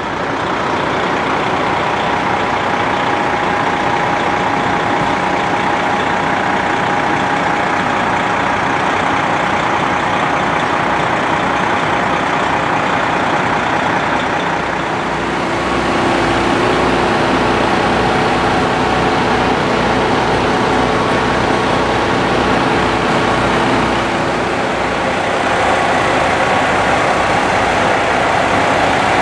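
Fire engine's diesel engine idling steadily close by: a loud, even running noise with a few steady tones over it, stepping up a little in level about halfway through.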